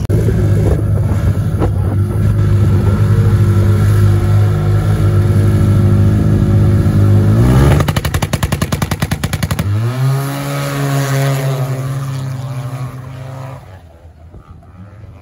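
Snowmobile engines running at high revs during a race. A steady high-revving engine note climbs into a rapid pulsing about eight seconds in. Then another engine rises in pitch, holds, and fades away near the end.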